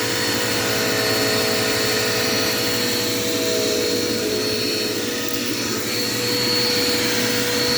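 Dirt Devil Quick Power vacuum cleaner running steadily, its motor giving a constant whine over the rush of air.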